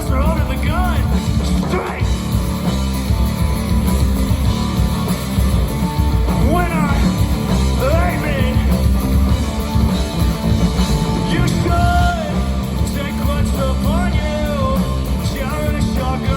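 Rock music with a singing voice over a heavy, steady bass.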